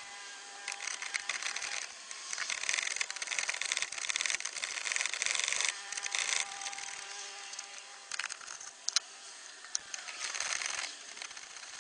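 Ratchet wrench with a 10mm socket clicking in irregular bursts as bolts around the car's shifter are loosened, with a few sharp metallic clicks near the end.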